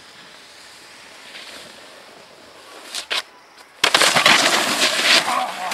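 Faint steady hiss with two sharp clicks about three seconds in, then a sudden loud, rough rush of noise as a snowboard's edge scrapes across the snow right by the microphone.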